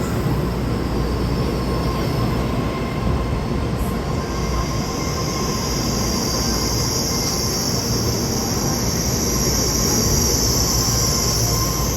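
Taiwan Railway EMU3000 Tze-Chiang electric multiple unit pulling into the platform, running with a steady rumble. About four seconds in a high squeal from the wheels sets in and grows louder as the train slows.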